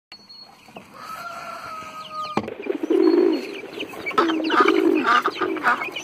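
Farmyard poultry calls: a run of short clucking calls repeating roughly twice a second from about three seconds in. Before them, a steady held tone cuts off suddenly about two and a half seconds in.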